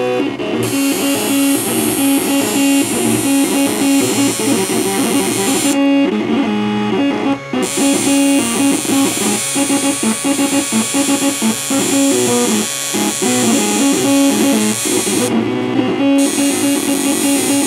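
Background music, an instrumental track led by guitar.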